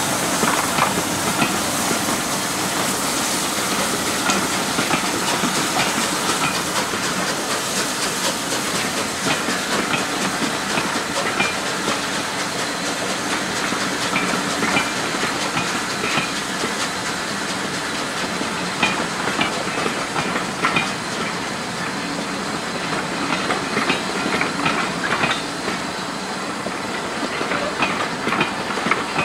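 Steady hiss of escaping steam from rebuilt Bulleid Pacific steam locomotives, with scattered short metallic clanks and ticks.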